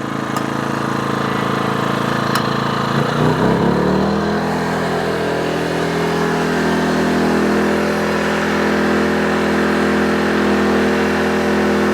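EcoFlow Smart Generator's gas engine running. About three seconds in its note shifts as the Delta Pro's charging load comes on, then it runs steady under a load of about 1,600 watts.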